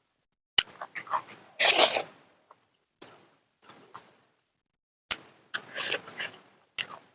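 Close-up eating sounds: wet mouth clicks and smacks with short bursts of chewing or slurping, the loudest about two seconds in and another cluster around six seconds.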